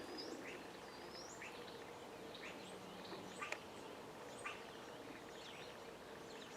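Faint birdsong: several small birds chirping, with short calls repeating about once a second.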